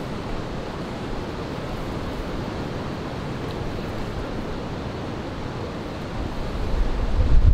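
Wind blowing against the microphone as a steady rushing hiss; about six and a half seconds in, a gust sets off louder low buffeting on the microphone.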